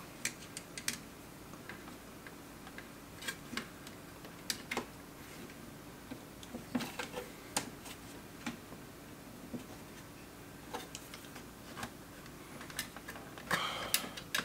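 Scattered light clicks and ticks of a car cassette player's plastic fascia and parts being worked loose by hand, with a short scraping cluster near the end.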